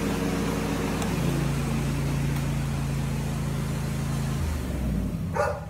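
John Deere S180 riding mower engine running on its test start after a deck-belt replacement. Its note changes about a second in, and it shuts off about four and a half seconds in and winds down. It is running normally, which the owner reads as the new belt working.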